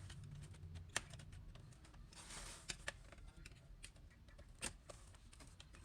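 Laptop's plastic bottom case being pried open: faint, scattered sharp clicks of the snap clips and the tool, with a brief scrape about two seconds in.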